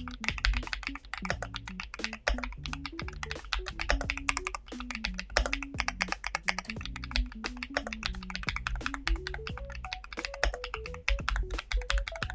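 Fast, continuous typing on a YUNZII B68 gasket-mounted mechanical keyboard with Cocoa Cream V2 switches and PBT keycaps: a dense patter of keystrokes with a creamy sound. A soft melody of background music plays under it.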